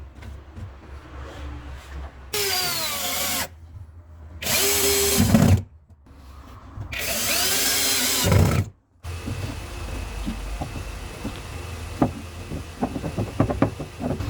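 An electric power tool run in three short bursts, each ending with its motor winding down as the trigger is let go. Scattered light knocks and clicks of handling follow.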